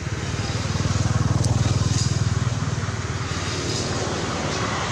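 A motor engine running with a fast, even pulse. It grows louder about a second in, then eases off.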